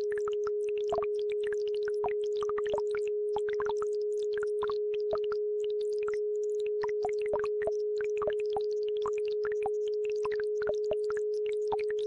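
A steady electronic tone held at one pitch, layered over a babbling brook: many quick, irregular trickles and splashes of water.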